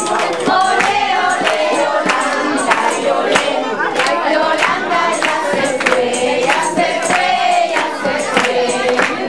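A crowd of voices singing a song together, with hand claps keeping a steady beat about twice a second.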